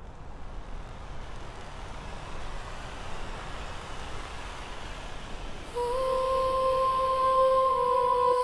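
Intro of an ambient meditation song: a wash of noise that slowly swells. About two-thirds of the way in, a voice comes in humming one long held note.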